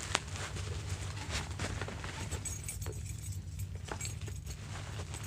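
Light handling sounds: a few small clicks and taps of hard plastic and packaging being moved about, with faint rustling over a steady low hum.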